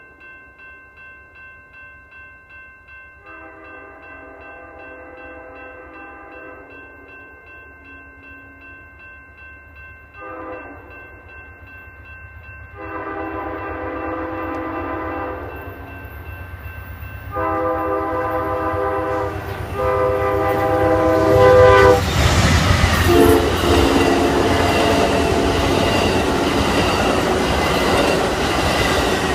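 Amtrak P42DC diesel locomotive approaching a grade crossing and sounding its air horn: a long blast about 3 s in, a short one near 10 s, then two more long blasts that grow louder, over the steady ringing of crossing bells. From about 22 s the locomotive and bilevel passenger cars pass close at speed, with loud wheel and rail clatter.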